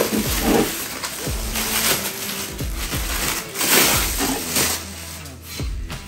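Bubble wrap rustling and crinkling in handled bursts as a molded plastic bumper is slid out of it, over faint background music.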